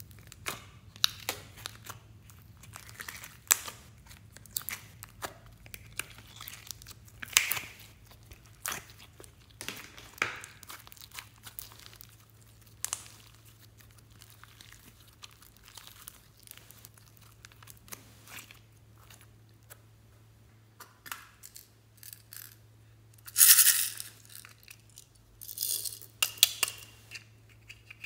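Pink glitter slime being pulled from a plastic container and stretched and squished by hand, giving sticky crackling and popping sounds at irregular intervals, with a louder crackle about twenty-three seconds in. A faint steady low hum lies underneath.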